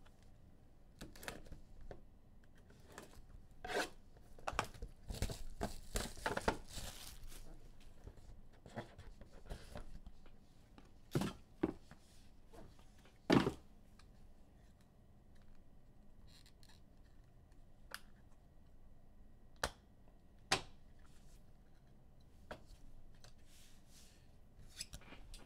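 A trading-card pack wrapper being torn open and crinkled, then cards being handled: irregular rustles and slides with a few sharper taps as cards are set down.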